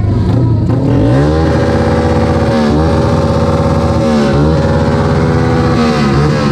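Modified underbone motorcycle with an open exhaust pipe being revved hard. The revs climb about a second in and are held high, dropping briefly about three times before climbing again.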